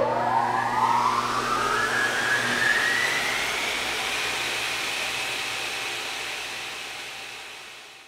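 Logo sound effect: a rushing whoosh whose pitch rises over about three seconds, then holds and slowly fades away near the end.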